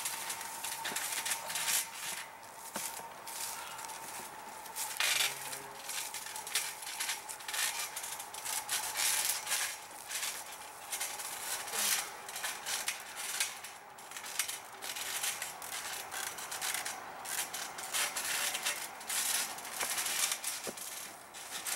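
Irregular crackling and rustling, with a faint steady tone in the first several seconds.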